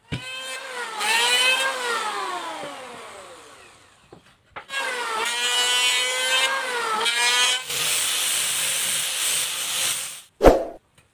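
Electric hand planer on pallet-wood boards: the motor whine dips in pitch as the blades bite and then winds down, followed by a second planing pass with further dips under load. After that an angle grinder with a sanding disc runs steadily against the wood, and a single sharp knock comes near the end.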